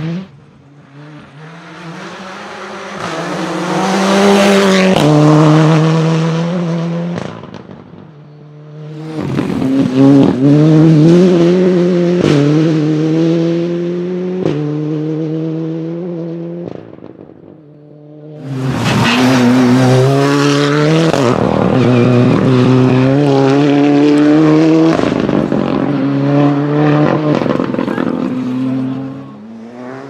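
Fiat 124 Abarth Rally R-GT's 1.8-litre turbocharged four-cylinder engine under hard acceleration on three passes, its pitch climbing and dropping back at each upshift of the sequential gearbox.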